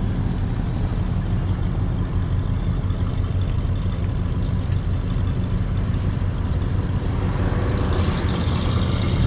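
Car engine running at idle with a steady low rumble, picking up near the end as the car starts to move off.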